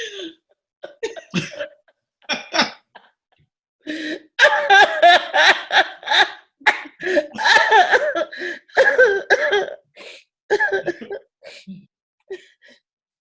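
A woman coughing: a few separate coughs, then a long run of rapid coughs lasting about seven seconds.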